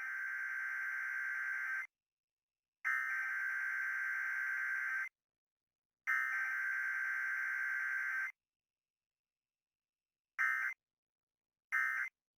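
Emergency Alert System SAME data tones for a Required Weekly Test: three buzzing digital header bursts of about two seconds each, a second apart, mark the start of the test. Near the end, two short bursts of the end-of-message code close it.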